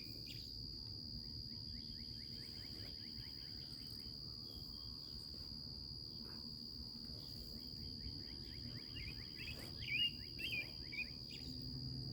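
Steady high-pitched insect trill, like crickets, with bird chirps coming and going, loudest about ten seconds in.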